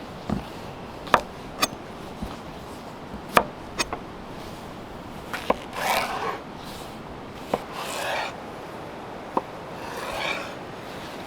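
Knife cutting food on a wooden board: irregular sharp taps, with three longer scraping strokes spaced about two seconds apart.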